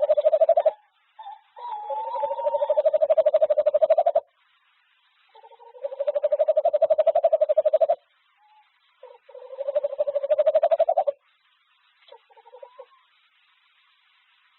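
Male tawny owl making a soft, ocarina-like trilling call from deep in the throat. It comes as three long, pulsing trills of two to three seconds each, after the tail of a fourth, with a few short notes near the end. This courtship call is given to encourage the female to inspect the nest.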